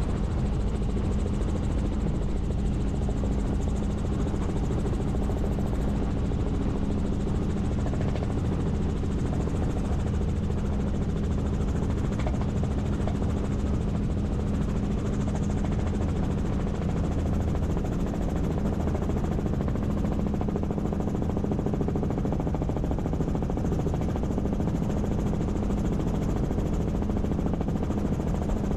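Helicopter in flight, its engine and rotor making a steady drone with a constant low hum.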